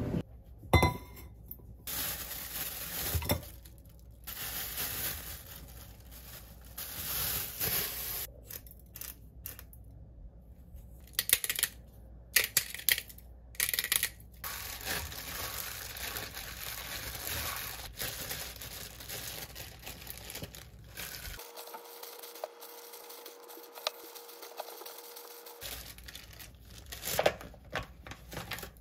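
Food-packaging handling sounds in irregular bursts: plastic wrapping crinkling, and a bacon package being torn open near the end.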